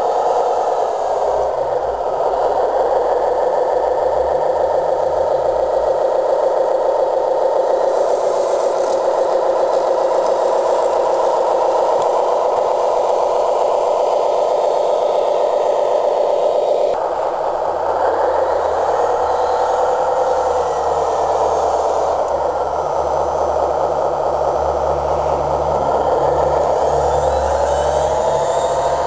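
Steel radio-controlled scale model of a Hanomag 66C wheel loader running as it drives and works in sand, a steady mechanical drone with rattle. Its pitch dips and climbs back a few times.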